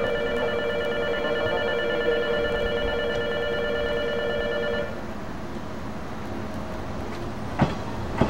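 A station platform bell or buzzer rings in one continuous two-note tone and cuts off about five seconds in. A 489 series electric train then keeps running along the platform with a low, even rumble, and two sharp clanks come near the end.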